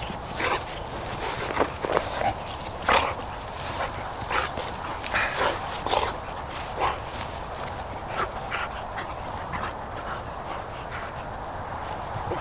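A dog moving about close by, with a run of short, irregular crackles and rustles that are busier in the first half.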